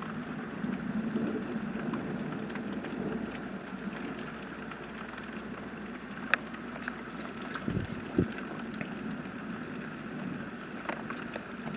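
Steady rain with scattered sharp drop ticks, and two short low thuds about eight seconds in.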